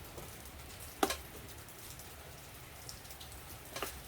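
Steady rain falling, with a sharp click about a second in and a smaller one near the end.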